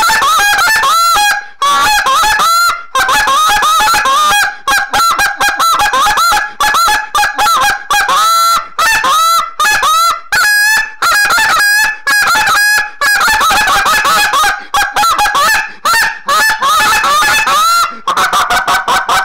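Foiles Migrators Show Time goose call, a competition call built as a shortened straight meat honker, blown loud in a fast run of short honking notes that bend sharply in pitch, quickening near the end.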